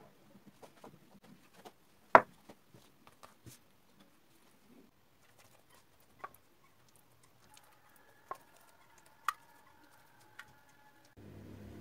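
Quiet kitchen handling noises from working stretched börek dough on a cloth-covered table and brushing melted fat onto the coiled pastry in a metal tray. These are scattered soft taps and clicks, with one sharp click about two seconds in and a few lighter ones later. Just before the end a steady low hum starts.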